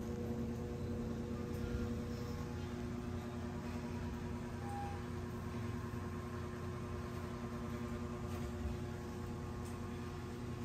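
Steady low mechanical hum, like a running appliance or fan, with a brief faint high tone about halfway through.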